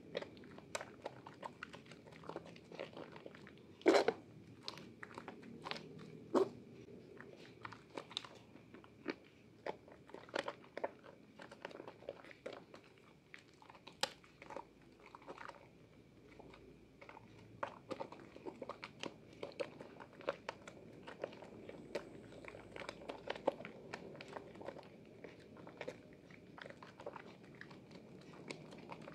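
A hand squishing and kneading thick soap lather, with wet squelches and irregular crackling pops of foam; the loudest pops come about four and six seconds in.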